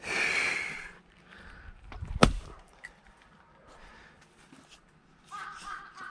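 A heavy breath out, then about two seconds in a single sharp axe blow striking a log of firewood.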